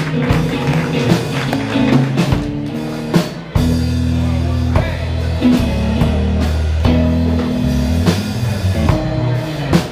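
Live rock band playing an instrumental passage without vocals: a drum kit keeps time under held electric guitar and bass notes.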